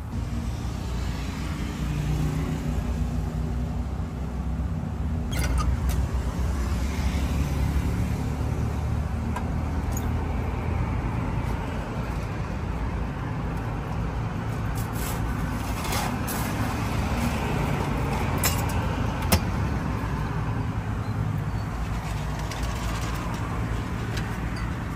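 Steady low rumble of road traffic, with a few light clinks and taps of glassware and metal at the espresso bar scattered through it.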